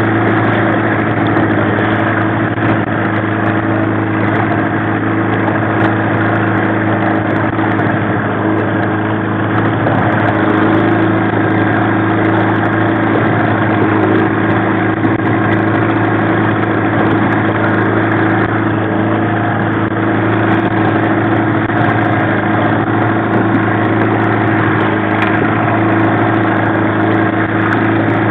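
1995 Mariner 15 hp two-stroke outboard running steadily at low trolling speed, an even drone.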